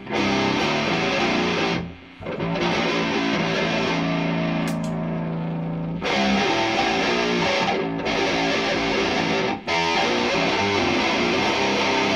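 Electric guitar played through a Boss DS-1 distortion pedal boosted by a Horizon Devices Precision Drive overdrive: heavily distorted chords and riffs. A chord rings out for a few seconds about two seconds in, and the playing breaks off briefly near the start and twice later on.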